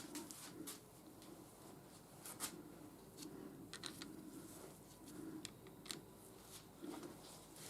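Faint, scattered light clicks and taps of small metal parts being handled, as cap head screws are fitted to a lathe tool-slide bearing cap.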